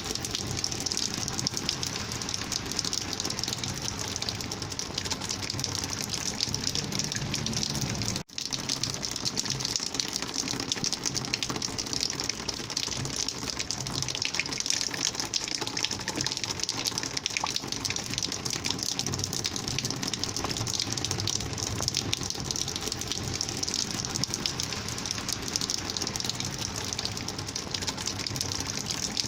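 Rainwater flowing in a steady, dense gushing rush. It drops out for an instant about eight seconds in.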